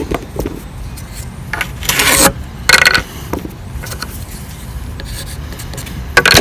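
Pencil scratching a layout line onto a pine board along the edge of a steel framing square, in several short strokes.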